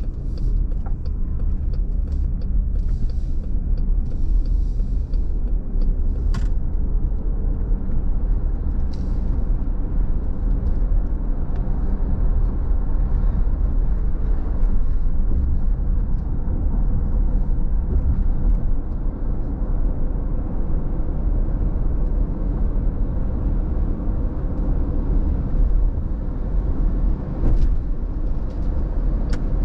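Car cabin noise while driving: a steady low rumble of engine and tyres on the road, with a few sharp clicks.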